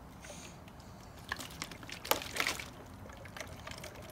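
Water swirling and draining in a vortex from an upper plastic bottle into a lower one through a bottle connector, a 'tornado in a bottle'. It trickles faintly, with a cluster of short gurgles and clicks from about a second in to two and a half seconds in.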